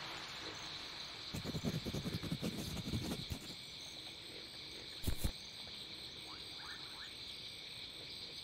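Crickets chirping in a steady high trill as night ambience. About a second and a half in there are a couple of seconds of scratchy rustling, and a short knock comes around five seconds in.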